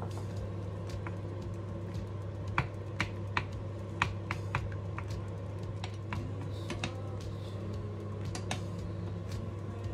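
Cooking spoons knocking and clicking against a saucepan as chicken pieces are stirred in boiling water: irregular sharp clicks, the loudest in the middle stretch, over a steady low hum.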